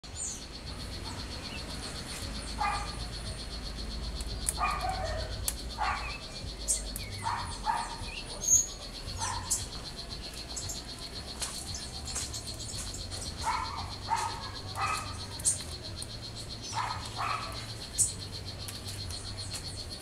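A steady, rapidly pulsing high insect trill runs throughout. Over it come short animal calls, one at a time or in pairs, at irregular intervals.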